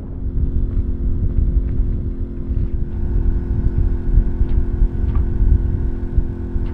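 Small boat's outboard motor running steadily, with wind buffeting the microphone.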